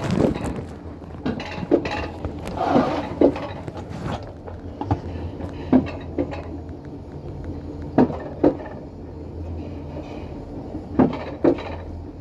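Alpine-coaster sled being hauled up the metal track, clacking sharply as its wheels cross the rail joints, mostly in pairs about half a second apart every few seconds, over a steady low hum.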